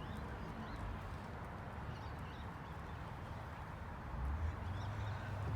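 Outdoor background: a steady low rumble with short, faint high chirps from small birds scattered through it. The rumble grows a little louder about four seconds in.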